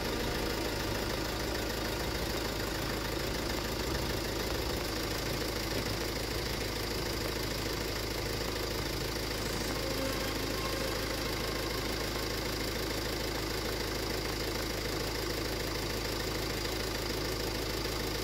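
Suzuki Grand Vitara's 1.9 DDiS four-cylinder turbo-diesel idling steadily, left running so that air can be bled out of the cooling system as it is topped up with coolant.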